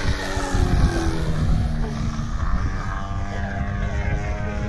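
Radio-controlled model aerobatic plane flying overhead, its propeller and motor note sliding up and down in pitch as it manoeuvres. A rough low rumble of wind on the microphone runs underneath.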